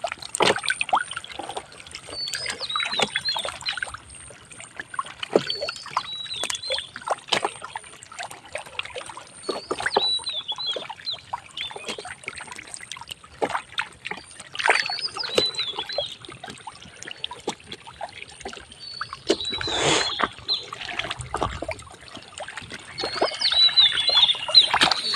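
Wet mud squelching and splashing as hands grab tengra fish in the thick mud of a drained pond, a run of short slaps and crackles with one louder splash about twenty seconds in. A bird chirps briefly every few seconds.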